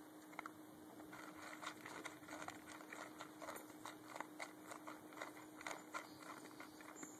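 German shepherd eating dog food from a bowl: many rapid, irregular clicks of chewing and of kibble against the bowl, starting about a second in.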